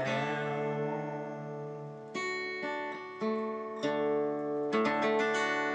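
Instrumental outro of a country ballad after the singing ends: guitar chords strummed several times, each left to ring.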